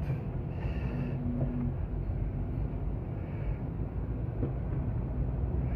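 Car engine running steadily under way, with tyre and road noise on a snowy road, heard from inside the cabin.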